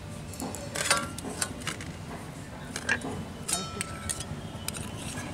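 A hand kneading a thick urad dal paste with grated potato in a stainless steel bowl, with several light clinks and taps against the metal.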